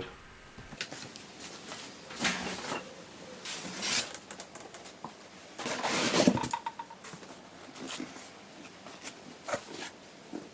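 Hand assembly of a sliding mitre saw: scattered knocks, clicks and scrapes as parts are handled and fitted, with a few longer scraping or rustling passes, the loudest about six seconds in.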